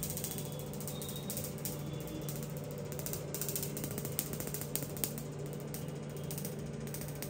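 Laser tattoo removal machine firing: a quick series of sharp snapping clicks over the unit's steady low hum.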